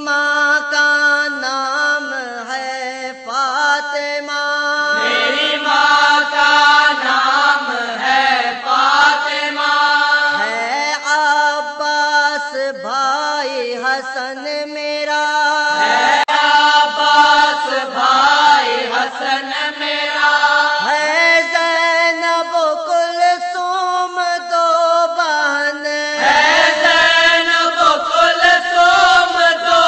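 A single voice chanting a marsiya, a Muharram elegy for Imam Husain, in a slow, melismatic melody with long-held notes that bend up and down in pitch. There are only brief breaths between phrases.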